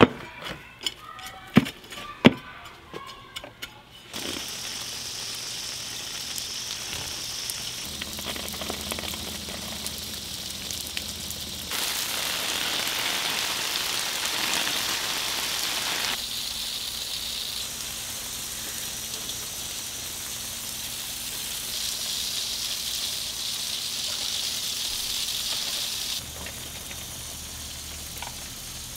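A hand trowel digging into potting soil, with sharp scrapes and knocks for about four seconds. Then a steady hiss of water spray falling on herb plants, louder for a few seconds at a time.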